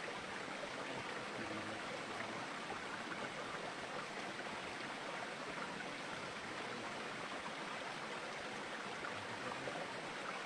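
Steady rushing of flowing water, like a stream running past, even and unbroken throughout.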